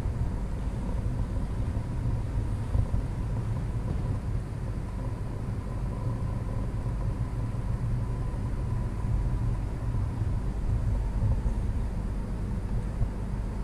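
Steady low rumble of background noise, with a faint steady high tone above it and no distinct events.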